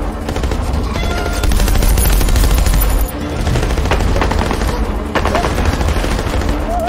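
Film battle soundtrack: rapid, continuous automatic gunfire, with music underneath.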